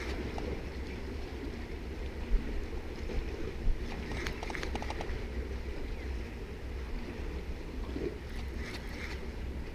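Seaside ambience: a steady low rumble of wind on the microphone over the sound of the sea, with a few faint clicks and taps about two to five seconds in and again near the end.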